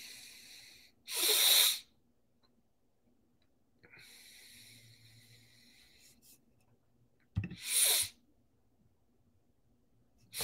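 Breath sounds close to a headset or computer microphone: a sharp, loud breath about a second in, a softer, longer one around the middle, and another sharp one near the end.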